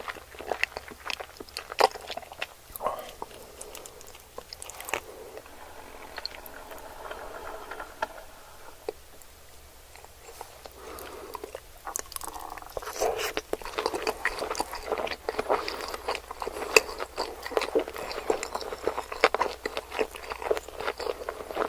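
Close-miked eating sounds of someone biting and chewing sushi: many sharp, wet mouth clicks and smacks. The chewing goes softer for several seconds around the middle, then turns dense again for the second half.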